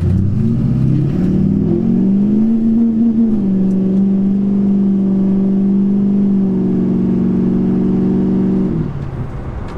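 Chevrolet Silverado 2500HD's 6.6 L Duramax V8 turbodiesel, heard from inside the cab, pulling hard at three-quarter throttle through the upshifts of its Allison 1000 six-speed automatic, which has a Transgo shift kit fitted. The engine note climbs and drops at each upshift, about a second in, about three seconds in and near six and a half seconds, then falls away as the throttle is lifted near the end. The 1-2 shift has a little bit of a flare before it engages solidly.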